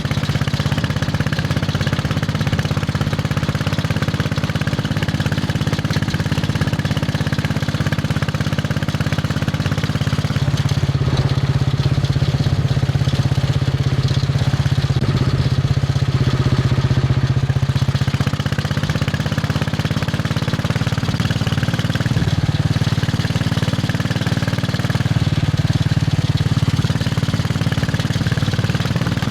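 Royal Enfield Bullet 500's single-cylinder four-stroke engine running with a steady thump, its engine speed changing from about ten seconds in before settling back a few seconds before the end.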